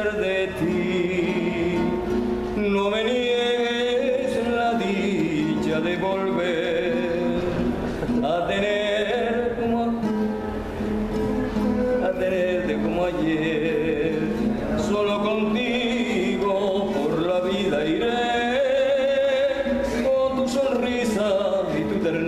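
A man singing a slow romantic ballad, holding long notes and gliding between them.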